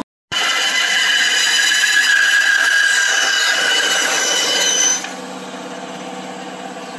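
Bandsaw cutting through a wooden spoon blank, loud while the blade is in the wood. About five seconds in the offcut comes free and the saw runs on, quieter, with no load.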